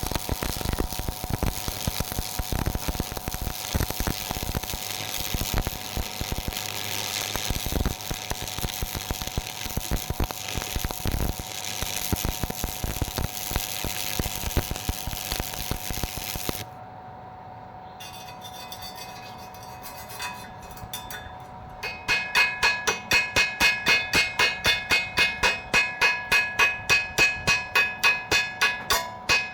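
Stick (MMA) welding arc crackling steadily, with a faint steady tone under it, until it cuts off abruptly a little past halfway. A few seconds later music with a fast, regular beat begins.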